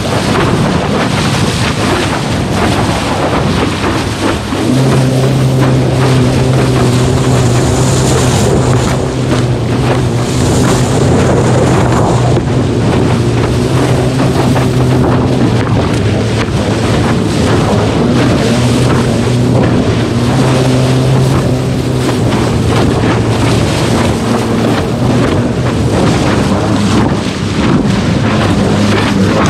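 Flipsky 65220 6 kW waterproof electric motor with built-in controller pushing a SUP board, a steady hum that comes in stronger about five seconds in and eases off around twenty-two seconds. Water rushes past the board, with wind on the microphone.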